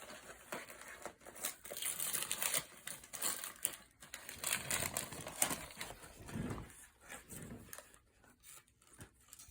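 Gift wrapping crinkling and rustling as it is handled and pulled open, with many small crackles. It dies down over the last couple of seconds.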